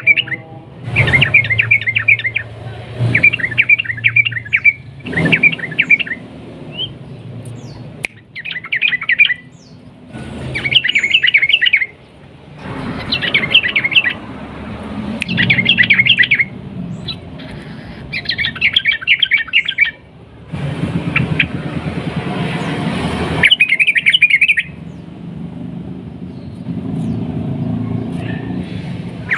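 Yellow-vented bulbul (trucukan) singing loud, bubbly phrases of rapid notes, each about a second long, repeated every one to two seconds, with a steady hiss between some phrases.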